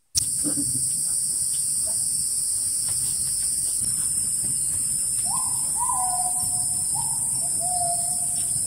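Forest ambience: a steady, high-pitched drone of insects throughout. About five seconds in, a bird calls four whistled notes, each a little lower than the one before.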